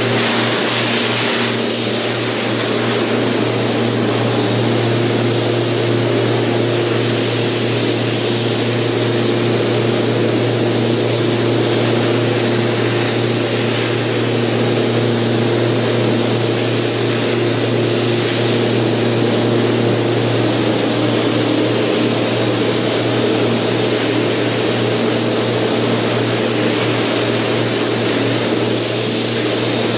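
Compressed-air gravity-feed paint spray gun hissing steadily as it sprays a coat onto plastic rocker panel covers, over a steady low machinery hum.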